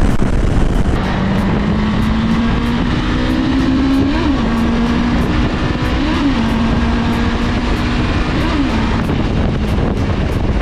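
Bristol Venturi 500 motorcycle engine running under way at a steady pace, its pitch swelling briefly and dropping back three times, with wind rushing over the microphone.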